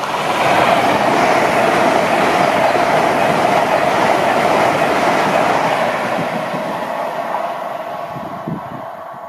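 LNER Class 800 'Azuma' train passing non-stop at speed, a loud rush of wheels on rail. It builds up over the first second and fades away from about six seconds in as the train runs off.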